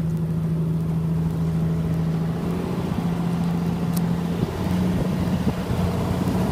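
Outrigger passenger boat's engine running steadily, its pitch stepping up a few times as it speeds up.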